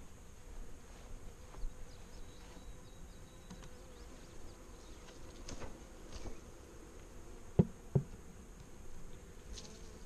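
Italian honey bees from a swarm buzzing around the handled cluster, a faint steady hum. Two sharp clicks a little over halfway through, close together.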